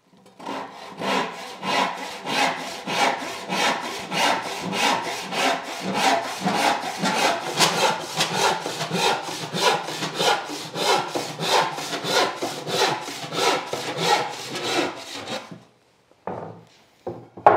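Hand panel saw crosscutting a rough wooden board in steady, even strokes that stop about fifteen seconds in as the offcut comes free. A couple of brief knocks follow near the end.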